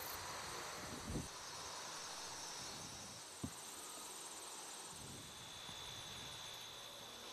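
Faint, steady high-pitched chorus of insects in a summer prairie, with a soft bump about a second in and a short click about halfway through.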